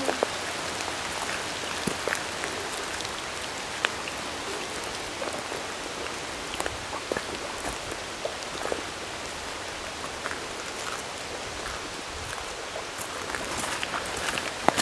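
Water drops pattering onto the surface of a pool: a steady hiss of falling drops with many separate plinks, a few louder ones near the end.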